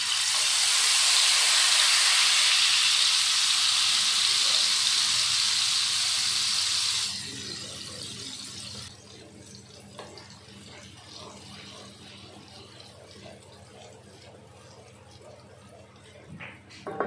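Turmeric mixed in water poured into hot oil in a kadhai, sizzling loudly for about seven seconds as the water boils off in the oil, then dying down about two seconds later to a quiet frying bubble. A wooden spatula stirs in it near the end.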